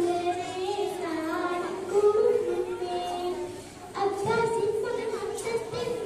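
A young girl singing a Mappila song (Mappilappattu) solo into a microphone, in long held notes that bend in pitch. There is a short pause for breath a little before four seconds in.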